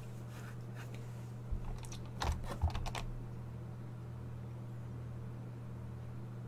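A short cluster of computer keyboard clicks about two to three seconds in, then only a steady low electrical hum.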